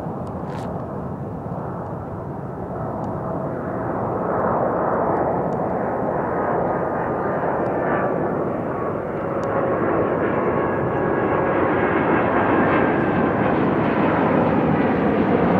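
Twin-engine Boeing 777-200ER jetliner on final approach, its engines giving a steady roar with a faint whine on top, growing steadily louder as it comes closer.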